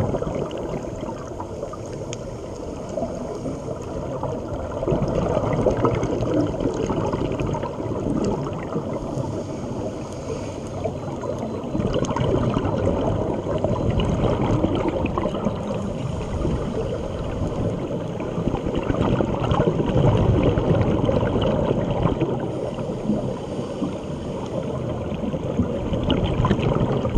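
Muffled underwater water noise picked up during a scuba dive, a dense low rushing that swells and eases every several seconds.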